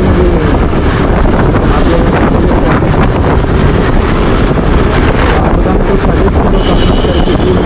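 Wind rushing over a helmet-mounted action camera's microphone while riding a motorcycle, a steady, loud rumble with the bike's running mixed into it.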